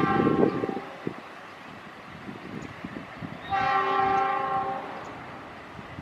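Train horn sounding twice: one blast tails off within the first second, and a second, longer blast of about a second and a half comes a little past halfway.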